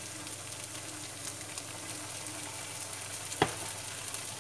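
Minced lemongrass and chili frying in a little oil in a nonstick pan, a steady sizzle as they are stirred with chopsticks. A single sharp click about three and a half seconds in.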